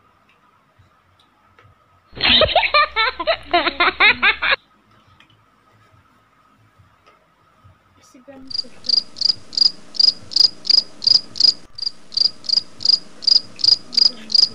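Cricket-chirping sound effect, an evenly repeated high chirp about four times a second, edited in from about eight seconds in. A few seconds earlier comes a loud, separate edited-in sound of about two seconds with a wavering, voice-like pitch.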